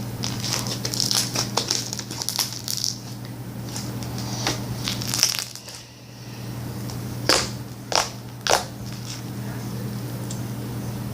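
Slime being spread and stretched by hand, giving off fine sticky crackling and clicking. It is followed by three sharp snaps about a second apart in the second half, with a steady low hum beneath.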